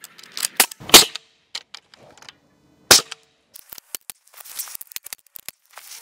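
Pneumatic framing nailer firing nails into wooden floor joists: a series of sharp shots, the loudest about a second in and again near three seconds, with lighter clicks of the tool and the timber between them.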